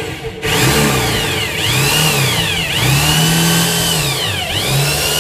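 Corded electric hand drill boring into meranti plywood. The motor starts about half a second in, and its whine rises and sags in pitch several times as the bit bites into the wood.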